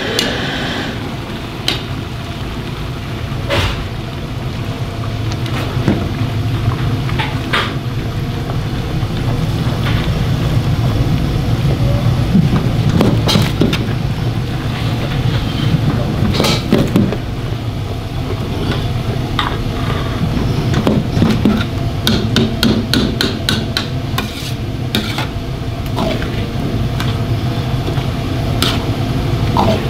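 Metal ladle stirring and knocking against a wok of simmering jajang (black-bean) sauce with onions and cabbage, sharp irregular clanks and scrapes with a quick run of ticks about two-thirds of the way in. Under it, the steady low rumble of the gas wok burner.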